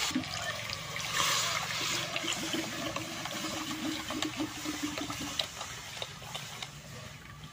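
Pulpy pomelo juice poured in a steady stream from a steel bowl into a wok, splashing and trickling, easing off near the end.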